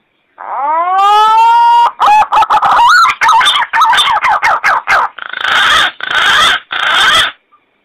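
Green pigeon (punai) call played as a hunting lure. It opens with a long, bending whistle that rises in pitch and carries many overtones, then breaks into a run of quick, wavering warbled notes, and ends in three harsh, rasping bursts of about half a second each.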